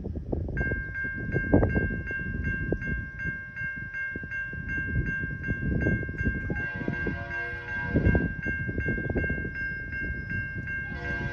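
A railroad grade crossing bell dings steadily about twice a second while a Norfolk Southern diesel freight approaches. A little past halfway, the locomotive's horn sounds a long blast of about three seconds, and another blast starts near the end, over a gusty low rumble.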